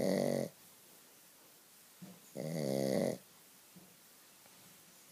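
Shih tzu snoring loud, one pitched snore under a second long about every two and a half seconds. One snore ends just after the start, a full one comes about two and a half seconds in, and the next begins at the very end.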